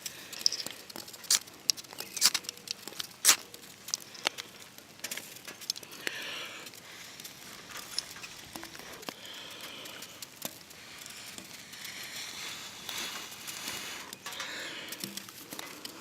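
Char cloth being handled: a run of sharp clicks and taps over the first few seconds, then softer rustling and crinkling with scattered small clicks.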